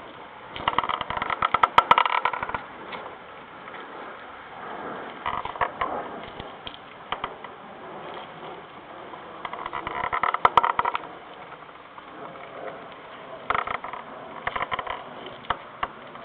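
Rear wheel of a GY6 scooter (Eagle GS-Tracer 150) giving a squeaking, grinding noise that comes in bursts of rapid clicks about every four to five seconds. The cause is unknown; the owner places the noise at the rear wheel.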